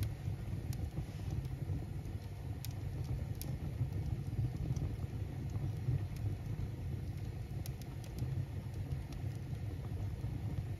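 Wood fire burning in the open firebox of a masonry bake oven: a steady low rumble of flame and draft, with a few scattered sharp crackles from the burning birch logs.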